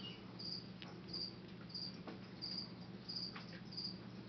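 An insect chirping steadily, short high chirps about three every two seconds, over a low steady hum, with a few faint clicks.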